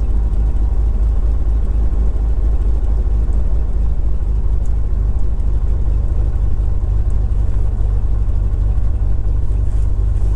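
Beechcraft G36 Bonanza's six-cylinder Continental IO-550 piston engine and propeller idling steadily just after a start, heard from inside the cockpit.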